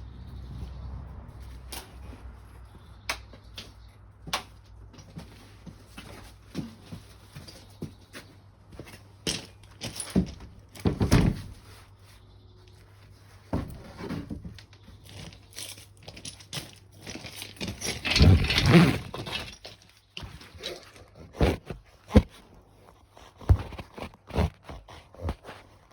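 Handling noise: irregular knocks, clicks and clatter, with a longer, louder rustle and scrape about eighteen seconds in.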